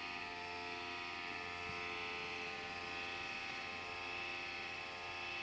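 Model railway turntable's drive motor running steadily, a hum with many steady tones, as the bridge spins 180 degrees after an exit position has been saved.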